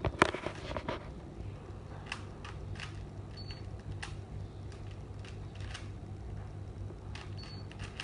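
Plastic Rubik's cube being turned: a quick run of clicks in the first second, then scattered single clicks every half second or so. A steady low hum runs underneath.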